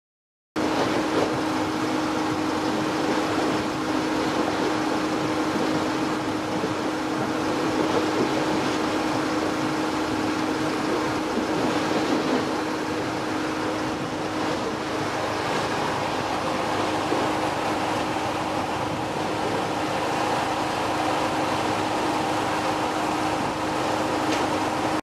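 Steady engine hum from a large motor yacht under way at low speed: a constant low drone over an even background hiss.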